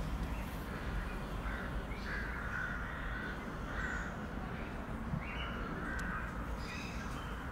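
A bird calling repeatedly in the background, a string of short calls every half second or so, over a steady low rumble.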